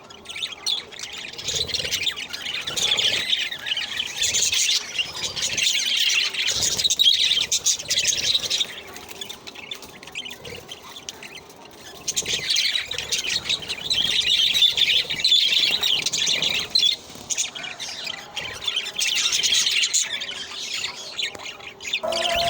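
Budgerigars chirping and chattering in a dense, continuous stream, loud for two long stretches with a quieter lull in the middle.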